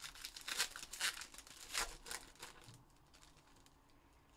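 Black foil wrapper of a 2021 Panini Encased football pack crinkling as it is handled, a string of sharp crackles that stops about two-thirds of the way in.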